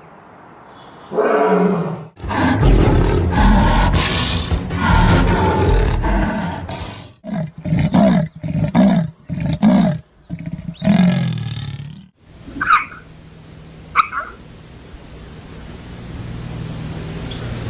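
Big cat roaring: a short roar, then one long loud roar, then a run of short roars in quick succession. After that comes a steady hiss with two brief high calls.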